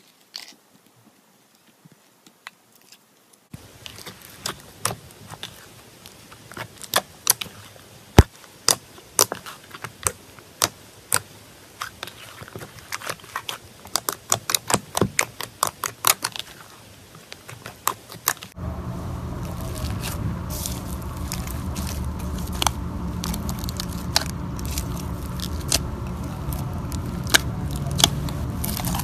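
Slime being squeezed and worked by hand, giving many irregular crackling pops and clicks. About 18 seconds in, the sound cuts to a different take, where a steady low hum runs under the pops.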